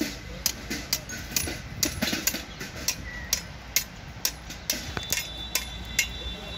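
Preheating burner running at a thermite rail-weld mould: a steady low rush with sharp, quick ticks about three times a second throughout.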